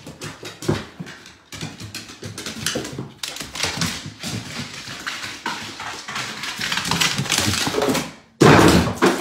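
An English bull terrier's paws thumping and claws clicking on hardwood stair treads as it jumps down the stairs, a run of irregular knocks. A much louder rough burst comes near the end.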